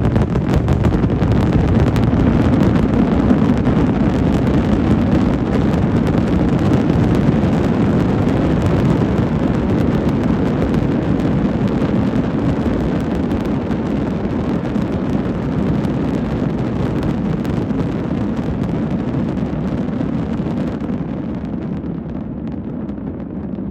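Aerial fireworks going off in quick succession, with many overlapping bursts merging into a continuous low rumble that dies away over the last few seconds.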